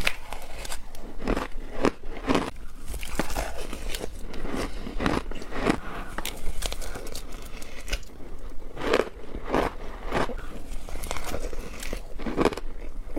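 Shaved ice with matcha being bitten and chewed, giving a run of crisp, irregular crunches.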